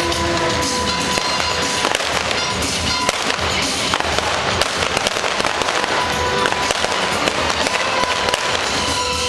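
Stunt-show pyrotechnics: a dense run of sharp pops and bangs with flame effects, over loud show music.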